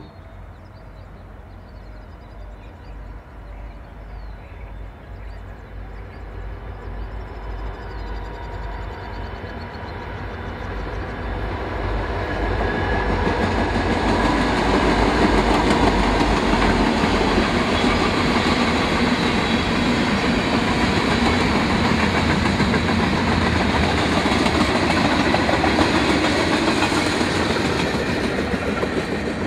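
BNSF freight train passing, its diesel locomotives running and its wheels clattering on the rails. The sound builds over about the first fourteen seconds as the train approaches, holds steady while it passes, and begins to ease off near the end.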